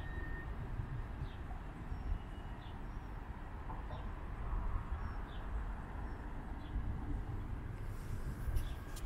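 A low rumble of wind on the microphone while walking outdoors, with a bird giving short high chirps about once a second. A few sharp clicks near the end.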